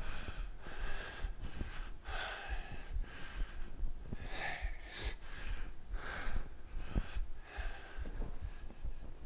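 A man breathing hard from exertion, a steady run of short, quick breaths in and out while doing single-leg split squats.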